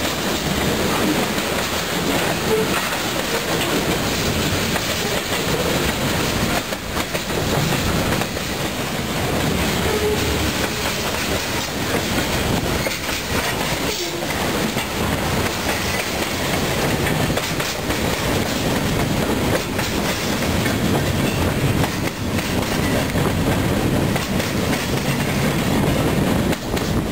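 Freight train cars rolling past close by: a steady, loud rumble and clatter of steel wheels on the rails, with clickety-clack over the rail joints.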